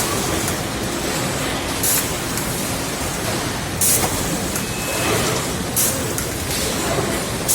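Chest freezer production line machinery running with a steady factory din. Short high hisses come about every two seconds.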